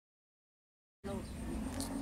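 Dead silence for about the first second, then a steady background hum with low rumble cuts in suddenly.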